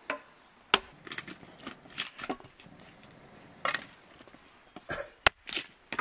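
Dry wood and sticks cracking and snapping in a string of irregular sharp cracks, the loudest two near the start and about five seconds in.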